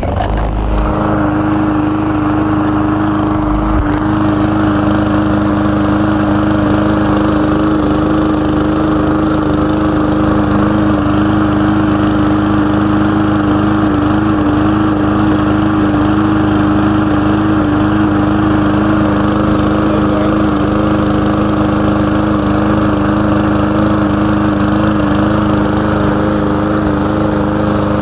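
Small four-stroke lawn mower engine catching right at the start and then running steadily at an even pitch, with its air filter off. The owner thinks the engine was overfilled with oil, and it is smoking and shooting oil out of the exhaust.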